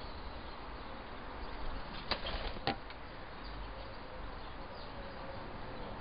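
Woodpigeons moving about on a wooden bird table: two sharp taps about half a second apart over a steady outdoor hiss.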